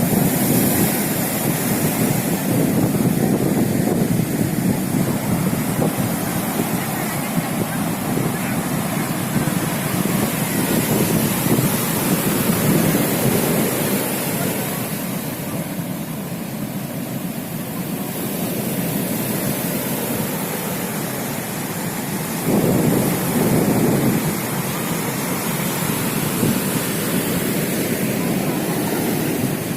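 Heavy ocean surf breaking and washing ashore in a continuous rushing noise, with wind buffeting the microphone. The noise swells and eases, rising to a louder surge about 23 seconds in.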